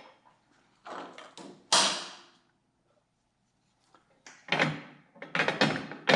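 Metal clicks and clacks from the headlight retaining springs being stretched with pliers and hooked onto the headlight bucket. There is a sharp knock with a short ring about two seconds in, then a run of clatter near the end.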